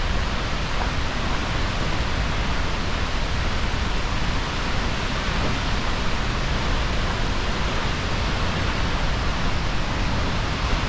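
Steady rush of Skógafoss waterfall, a loud, even, unbroken noise of falling water.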